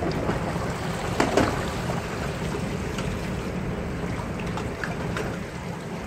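Toilet flushing: water from a Sanit concealed cistern rushes steadily through a Kohler wall-hung bowl, washing away a load of tissue paper, with a brief louder burst about a second in.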